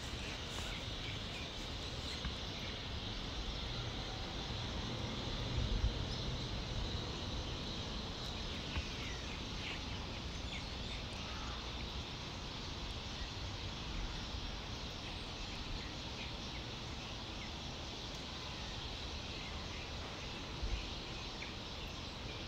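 Outdoor ambience picked up by the phone's microphone: a steady high-pitched hum with a few short bird chirps about nine to eleven seconds in, and low wind rumble on the microphone that swells about six seconds in.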